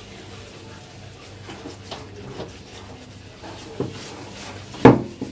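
Hand-cleaning of a stainless-steel gas stove's front panel: faint rubbing and a few light clicks, then one sharp metallic knock near the end.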